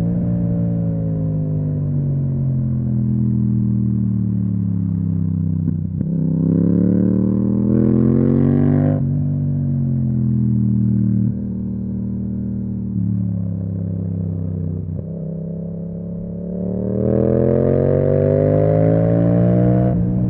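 Yamaha MT-07's parallel-twin engine through an Akrapovic exhaust, riding on and off the throttle. The pitch falls away at first, climbs from about six seconds in and cuts back sharply about three seconds later, then holds fairly steady before climbing again near the end.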